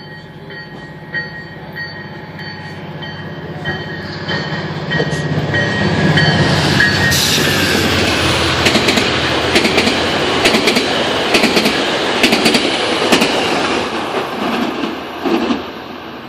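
GO Transit passenger train with bilevel coaches approaching and passing through the station at speed: a low steady drone as it nears, then a loud rush of rail noise from about six seconds in, with rapid sharp clicks of the wheels over rail joints, fading near the end.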